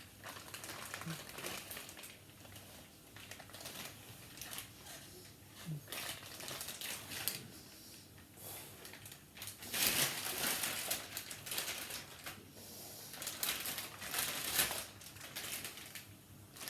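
Plastic packaging crinkling and rustling as it is handled and pulled off the lightsaber hilt, louder about ten seconds in and again near fifteen seconds.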